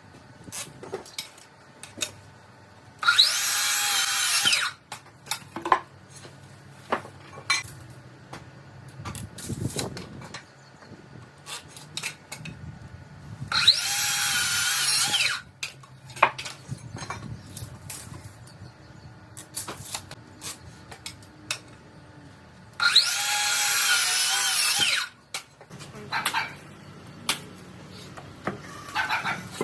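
A power drill run three times for about two seconds each, its motor whine dipping in pitch under load as it drives into wood. Light knocks and clicks from handling wood and tools come between the bursts.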